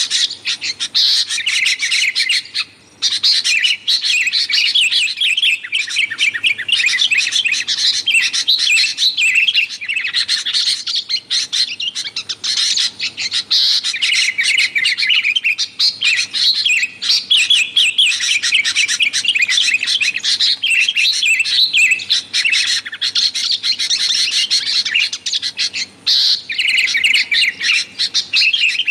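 Sooty-headed bulbuls calling in a busy, rapid chatter of high notes, nearly without pause, with brief breaks about three seconds in and near the end.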